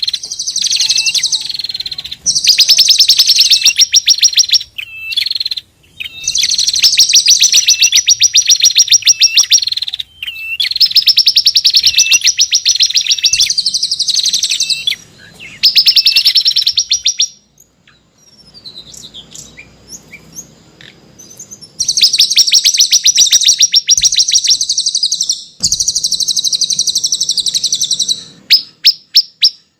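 A small songbird singing loud phrases of rapid, repeated high chirps, each phrase lasting one to three seconds with short breaks between, and a quieter spell of a few faint notes about two-thirds of the way in.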